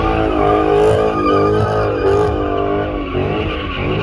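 Car engine revved hard, its pitch rising and falling again and again, with tyre skidding underneath: typical of a burnout or donuts.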